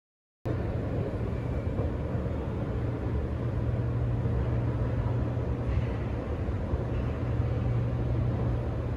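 Escalator running with a steady low hum and mechanical rumble, heard while riding down into an underground metro station. It starts suddenly about half a second in.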